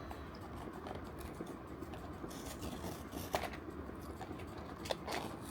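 Faint rustling and small clicks of blind-box packaging being handled, with a few sharper clicks near the middle and end.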